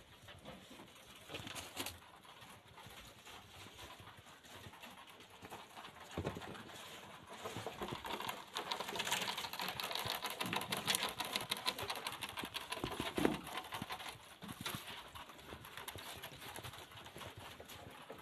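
Irregular tapping, knocking and rustling around hay-lined rabbit hutches with wire-mesh fronts, busiest in the middle.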